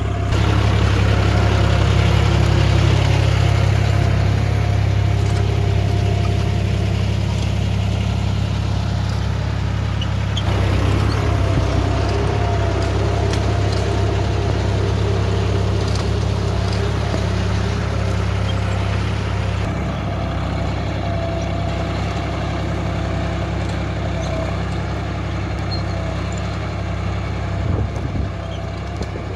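John Deere 5310 tractor's three-cylinder diesel engine running steadily under load, pulling a reversible disc plough through dry soil. There is a brief knock near the end.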